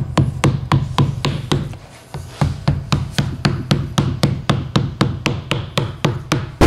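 Rubber mallet tapping quickly and evenly, about four strikes a second, on the rim of a 10-inch Alpine Type R subwoofer to seat it into the cutout of a wooden subwoofer box. The tapping breaks off briefly about two seconds in, then resumes.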